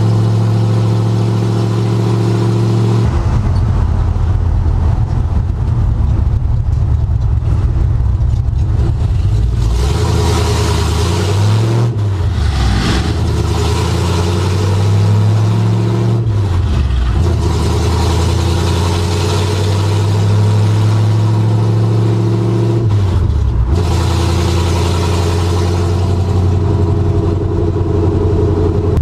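Ford F100 pickup's small-block V8 running loud through open headers, heard from inside the cab while driving. The engine note holds steady, then drops away and climbs back three times as the five-speed manual is shifted.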